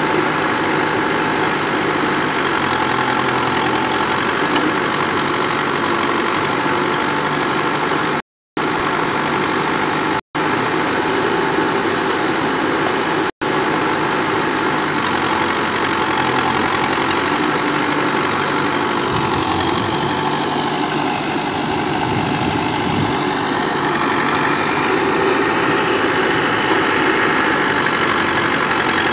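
Diesel engine of a Terex backhoe loader running steadily while the backhoe arm digs soil. The sound cuts out briefly three times in the first half.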